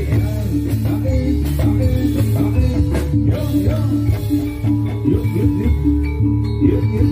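Javanese gamelan ensemble playing jathilan dance music live: a loud, continuous piece of repeated pitched metallic notes over a sustained low bed, with short sliding drum-like pitch bends.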